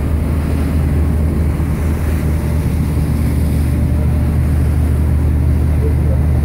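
A passenger ferry's engine running at cruising speed, heard on deck as a loud, steady low drone.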